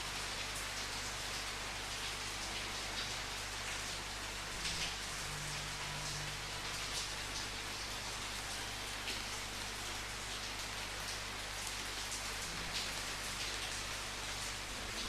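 Steady rain falling, with scattered louder individual drop hits over an even hiss.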